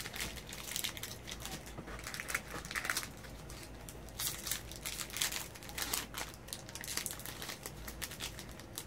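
Foil wrapper of a Magic: The Gathering booster pack crinkling as it is handled and torn open, in irregular crackly rustles with the cards pulled out.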